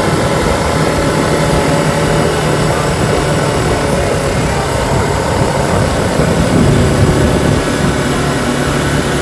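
ATV engine running under way, a steady drone that swells briefly about seven seconds in.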